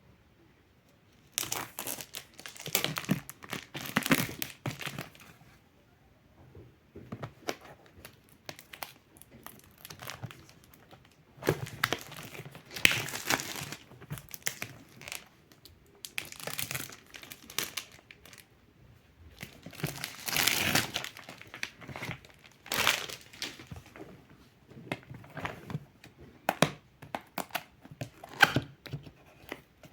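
Packaging being handled: plastic wrap crinkling and rustling with tearing sounds, in irregular bursts separated by short pauses.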